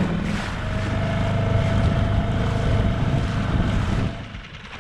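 Dinghy's outboard motor running at speed, with water rushing past the hull and wind buffeting the microphone; a steady whine rides over the low engine rumble. The sound drops away suddenly about four seconds in.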